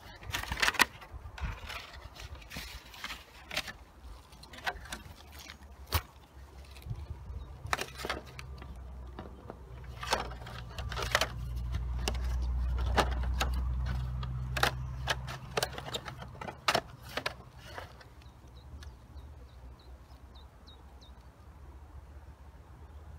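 Close handling noise: a string of sharp knocks and clicks right at the microphone, with a low rumble that swells through the middle and dies away about three quarters of the way in.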